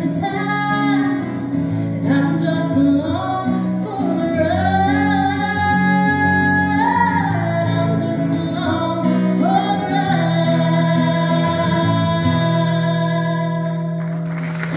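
A woman singing the closing lines of a country song to her own guitar, holding some notes long, with the guitar chord ringing on and fading as the song ends.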